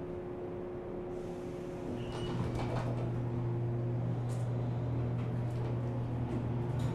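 Cabin sound of a JR West 475 series electric multiple unit, recorded aboard KuMoHa 475-42: a steady electrical hum. About two seconds in, a louder low steady drone sets in, with a few sharp clicks.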